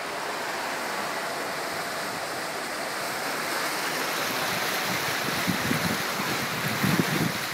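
Car wheels pushing through floodwater: a steady rushing swish of displaced water, with irregular low thuds near the end.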